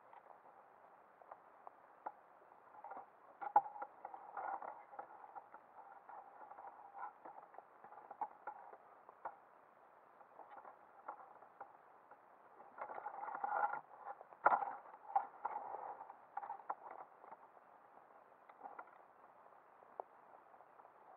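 Scattered underwater clicks and crackles picked up by a submerged camera, muffled and dull. There are two busier spells of scraping and knocking, a few seconds in and again about two-thirds through, each with one sharp knock.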